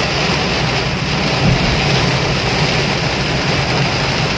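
Heavy tropical downpour drumming steadily on a car's windscreen and body, heard from inside the moving car, with a steady low rumble underneath.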